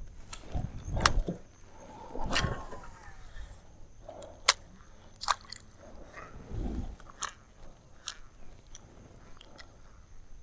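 Irregular sharp clicks, taps and low knocks from handling a baitcasting rod and reel aboard a small fishing boat, with a brief swish about two seconds in.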